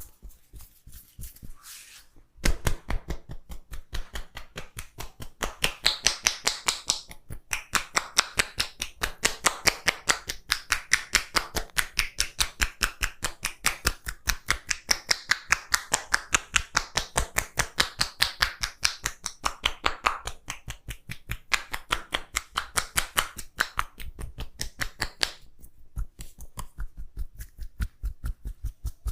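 Hands tapping and slapping rapidly on an oiled head in a massage, a fast even rhythm of several sharp strikes a second. The strikes start about two seconds in, grow louder and ease off near the end.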